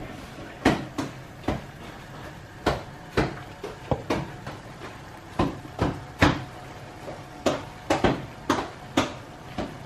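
Potatoes being mashed aggressively by hand: a potato masher knocking down into a pan in uneven strokes, about two a second, each with a short ring.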